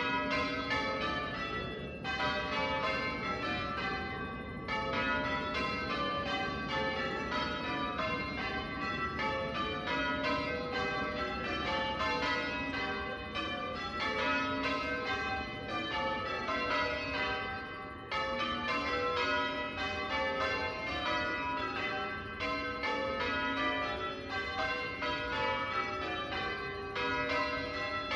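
Change ringing on a ring of church tower bells: the bells are struck one after another in a continuous, unbroken stream, each note ringing on into the next.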